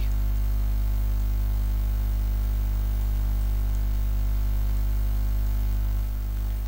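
Steady electrical mains hum at about 50 Hz with its overtones, picked up by the recording microphone and running unchanged.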